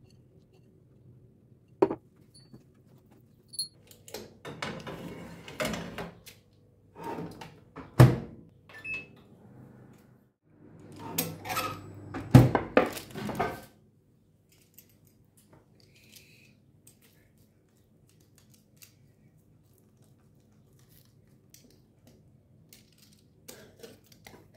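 Kitchen handling sounds: a few light clicks, then three spells of clattering of a metal baking tray and utensils, each with a sharp knock, the two loudest about eight and twelve seconds in. A faint steady hum lies underneath.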